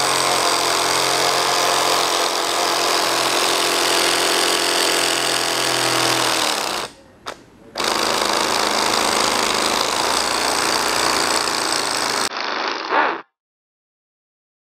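A small electric motor spinning a Lego inline-four engine model, its plastic crankshaft and pistons clattering rapidly and steadily. It stops briefly about seven seconds in, runs again, and cuts off near the end.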